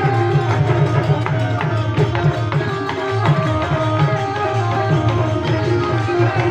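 Holi bhajan music: an Indian devotional song in an instrumental stretch, with a steady hand-drum rhythm under a sustained melody line.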